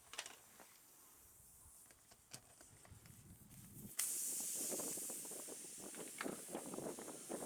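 A few faint clicks and taps, then about four seconds in a sudden, steady hiss of air at the car tyre begins, with crackling and rustling under it.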